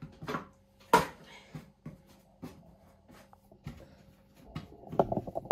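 Hands working a ball of dough on a floured wooden board: scattered knocks and taps, one sharp knock about a second in, and a quicker run of soft taps near the end.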